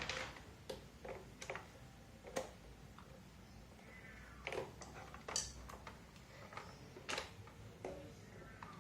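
Faint, scattered clicks and taps of plastic electric-fan parts and screws being handled and fitted together by hand, with a short squeak about four seconds in and again near the end.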